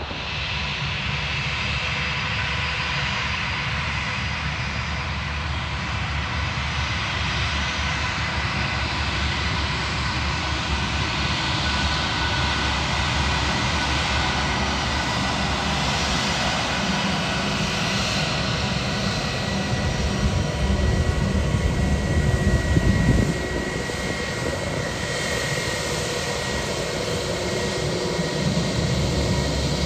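Airbus A320 jet engines running at taxi power: a steady whine over a low rumble. The rumble grows louder about twenty seconds in, then drops back suddenly.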